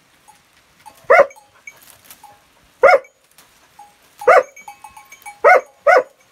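A dog barking: five short, sharp barks about a second or more apart, the last two in quick succession.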